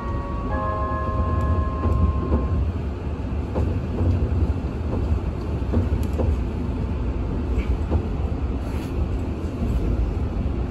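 JR 485-series electric train running along the line, heard from inside the driver's cab as a steady low rumble with light, irregular clicks from the rails.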